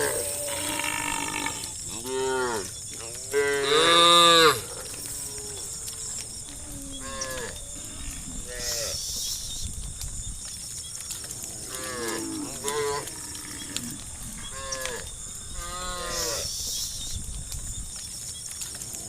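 Cattle mooing, one call after another from several animals, each call bending up and then down in pitch. The loudest comes about four seconds in.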